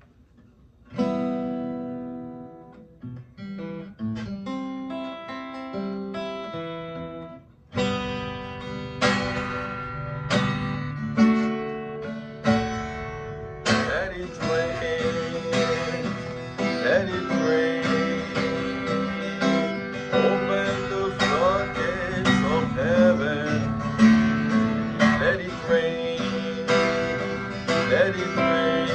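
Instrumental music led by a plucked acoustic guitar, opening with sparse picked notes. The texture fills out about eight seconds in and grows denser again about halfway through.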